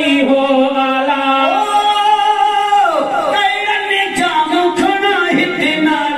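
A man singing a Sindhi naat without instruments into a microphone, holding long drawn-out notes, with one long downward slide in pitch about three seconds in.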